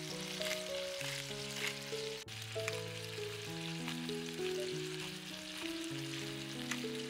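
Food frying in a pan: a steady sizzle with scattered crackles. Soft background music of slow, held chords plays underneath.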